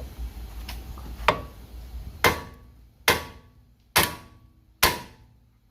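Hammer striking steel front-suspension parts five times, about once a second, each blow ringing briefly: knocking a seized lower control arm joint loose.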